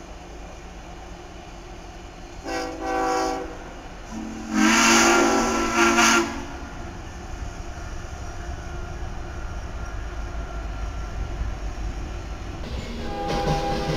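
Locomotive air horn sounding: a short blast about two and a half seconds in, then a longer, louder one about a second later. Near the end the horn sounds again and holds over the rumble of the train, which grows louder.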